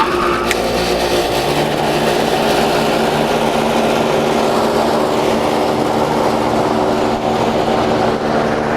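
1979 Lennox air conditioner condensing unit starting up. It comes on suddenly with a click about half a second in, then the compressor and condenser fan run with a steady hum.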